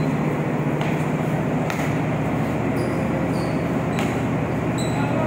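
Steady low hum of a ship's machinery filling an enclosed steel deck, with a few sharp knocks of a basketball bouncing on the steel floor.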